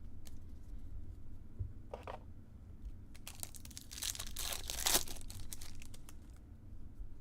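Foil wrapper of a Topps Chrome card pack being torn open and crinkled, a brief crinkle about two seconds in and then a longer run of crackling tearing that peaks about five seconds in.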